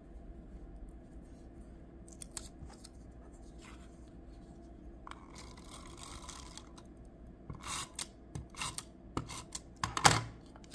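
Kokuyo Dotliner tape runner being pressed and run across a piece of paper with a short scratchy sound about halfway through, followed by paper rustling and handling with sharp taps; the loudest is a knock near the end.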